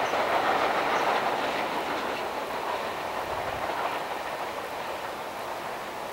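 Amtrak passenger cars rolling on the rails, the wheel noise fading steadily as the train moves away.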